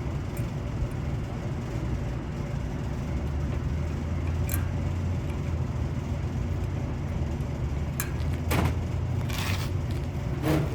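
Steady low rumble, like background traffic, with a few short clicks and knocks in the second half.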